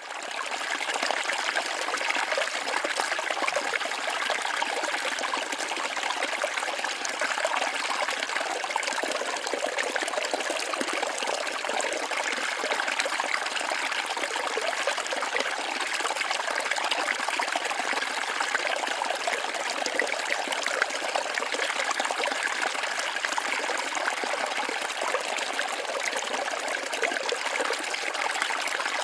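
Waterfall: a steady, unbroken rush and splash of falling water, mostly in the middle and upper range, with little deep rumble.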